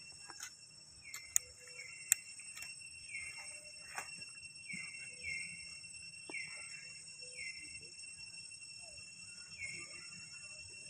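Steady high drone of insects, with a short falling chirp repeated every half second to a second. Two sharp clicks come about a second and a half and two seconds in.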